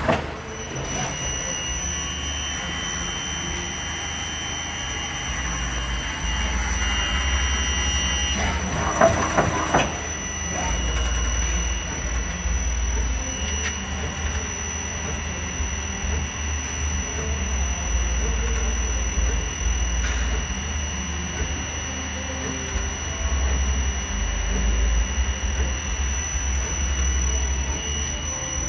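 Okuma LB-9 NC lathe running on test: a steady high-pitched whine over a low hum, with a brief clatter of knocks about nine seconds in.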